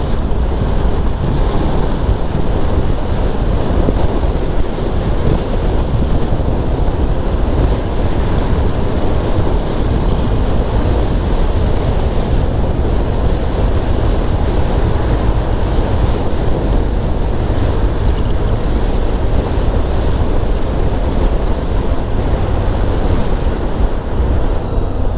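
Steady, loud wind rush buffeting the camera microphone on a Honda CBR650F motorcycle at road speed, with the bike's running and tyre noise underneath.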